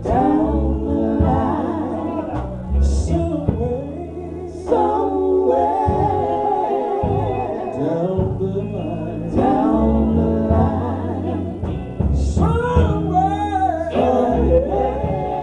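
Gospel singers performing in harmony, with a sustained bass line underneath, mid-song.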